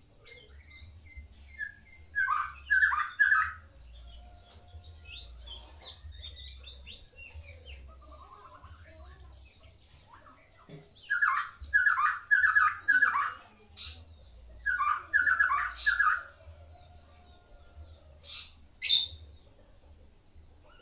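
Medan-type white-rumped shama (murai batu) singing. Loud bursts of rapid, repeated notes come about two seconds in and again through the middle, sharp high whistled notes follow near the end, and softer chirps fill the gaps.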